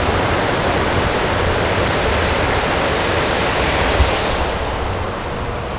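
Heavy rain pouring down in a steady, even hiss; the hiss turns duller near the end.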